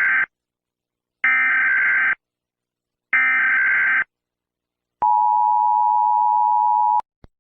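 Emergency Alert System tones: three short bursts of the SAME header's harsh digital data screech, then the two-tone EAS attention signal held steady for about two seconds, which cuts off abruptly, followed by a brief click.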